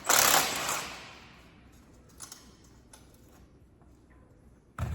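Electric fan switched off, its rushing air dying away over about a second. Then it goes quiet apart from a few light clicks, with a short low thump near the end.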